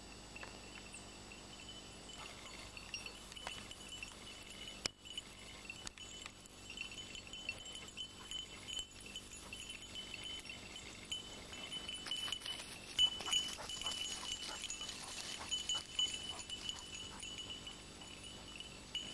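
A small collar bell on a working hunting dog tinkling unevenly as the dog moves through the scrub. It grows louder and busier past the middle, then fades, with light rustling and snapping of brush.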